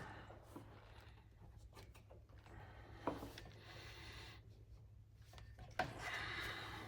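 Quiet rubbing and scraping of hands and tools working on a car's fender, with two sharp knocks about three and six seconds in and a louder scratchy stretch near the end.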